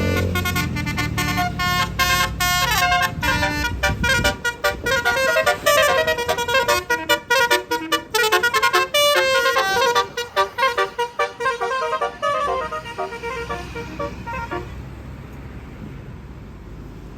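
Bus's Basuri telolet horn playing a fast melody of short, stepping multi-tone notes, with a low engine rumble under it for the first few seconds. The horn fades away about 14 seconds in, leaving a quieter steady background.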